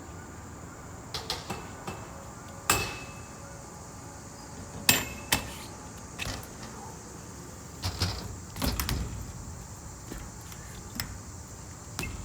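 BMX bike knocks and clacks: a dozen or so sharp, irregular impacts of tyres and pegs striking ramps and ledges during a trick run.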